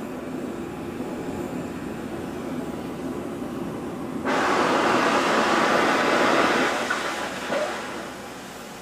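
Oxy-fuel track cutting torch: a steady preheat flame hiss, then about four seconds in the cutting oxygen is switched on with a sudden, much louder rushing hiss as the torch cuts through the plate. The hiss eases off near the end.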